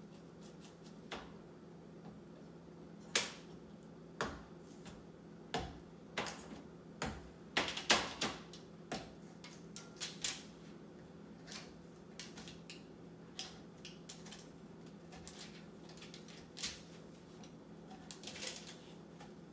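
Fork stabbing holes in the tough rind of a halved spaghetti squash on a foil-lined baking sheet: irregular sharp clicks and taps, thickest around the middle, over a steady low hum.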